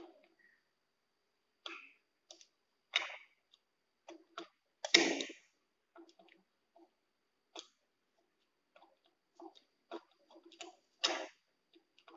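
Pliers clicking, snapping and scraping against the plastic of an old wall-mounted ceiling-fan switch as it is pried and broken out, in irregular strokes with the loudest snaps about five seconds in and again near the end.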